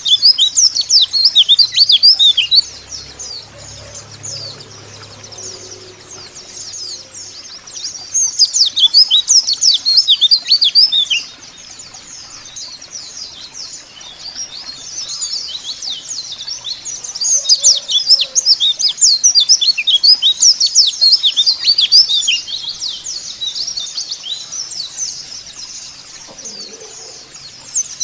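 White-eyes (pleci) twittering: dense, rapid, high chirps, loud in bouts at the start, about a third of the way in and past the middle, with softer chirping in between.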